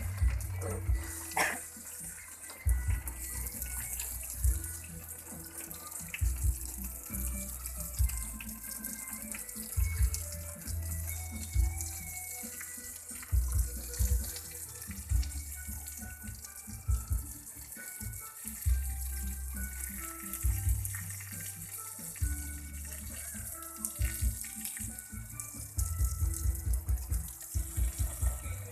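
Steady hiss of running water from a tap, under background music with a repeating deep beat and short melodic notes.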